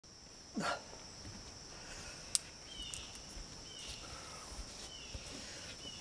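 Faint outdoor background with a steady high-pitched drone, likely insects. About half a second in there is a short noise that falls in pitch, a sharp click comes a little over two seconds in, and a few short falling chirps follow about once a second.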